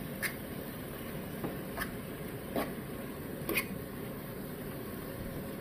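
Ground turkey and onions cooking in a pot: a low steady hiss with four sharp pops or ticks scattered through it.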